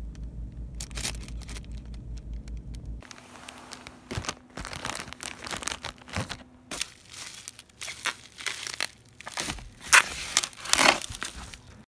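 Plastic bags and plastic wrapping crinkling and rustling as packaged food is handled and unpacked, in irregular bursts that grow louder near the end.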